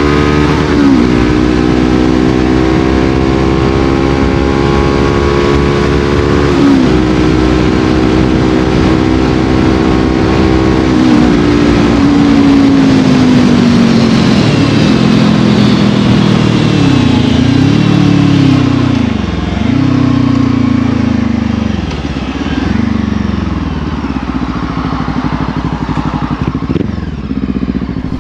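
Brixton Crossfire 500's parallel-twin engine through an FF by Fresco exhaust with its baffle fitted, pulling up through the gears, its note rising with shifts about one, seven and eleven seconds in. It then eases off, the revs dipping and flaring again on downshifts in the second half.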